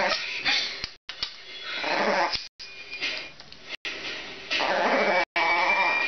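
Chihuahua growling in several rough stretches broken by short gaps, with a thin high whine joining in near the end.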